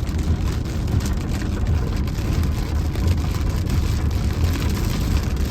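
Storm wind and rain on a moving car, heard from inside the cabin: a steady low rumble with rain ticking on the body and glass.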